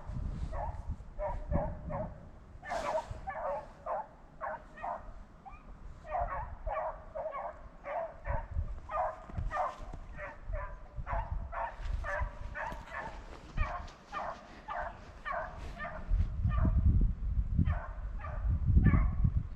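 Rabbit hounds baying over and over, about two cries a second, as they run a rabbit's scent trail. A low rumble comes in near the end.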